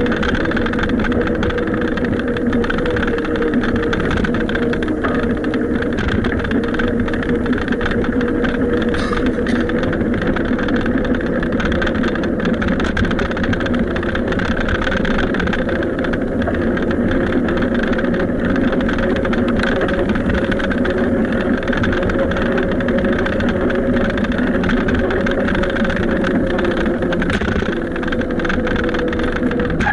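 Steady wind and road noise from riding a bicycle, with a constant low hum.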